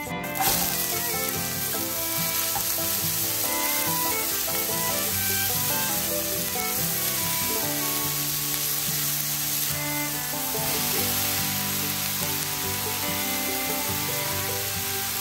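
Chopped onions frying in hot butter and oil in a frying pan, with a steady sizzle. The sizzle jumps up sharply about half a second in as the onions hit the fat, and the onions are stirred with a spatula.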